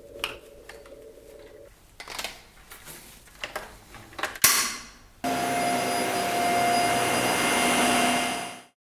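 Clicks and knocks of hard plastic parts being handled, with one sharp click about four and a half seconds in. Then the Dyson Small Ball upright vacuum cleaner runs loudly and steadily with a steady whine, and cuts off suddenly near the end.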